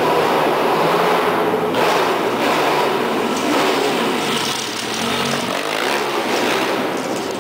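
Pit bike engine running on a dirt track, its pitch rising and falling as the rider works the throttle, inside a large concrete hall.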